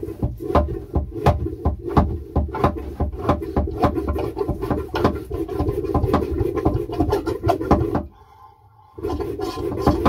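Manual pump marine toilet being pumped hard, its hand pump clacking a few times a second with water sloshing and gurgling as a bowl of pink antifreeze is pumped through to the holding tank. The pumping stops for about a second near the end, then starts again.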